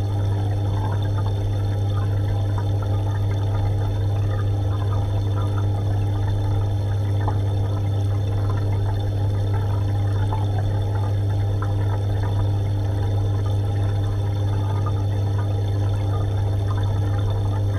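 Aquarium pump running with a steady low hum, under a continuous gurgling and trickling of water.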